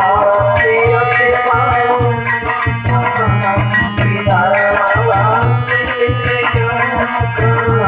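Instrumental Indian folk music: a fast, steady drum beat under a sustained melody line.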